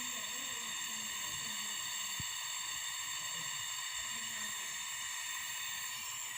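Steady hissing of a gas brazing torch flame, as used to join a refrigerator's copper refrigerant pipes.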